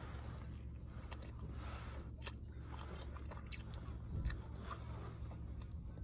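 Someone biting into and chewing a slice of pizza, with soft wet mouth sounds and a few small clicks, over a steady low hum.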